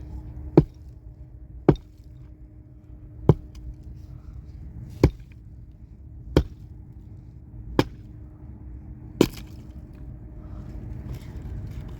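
Axe or hatchet chopping wood: seven sharp single chops at an even pace, about one every second and a half.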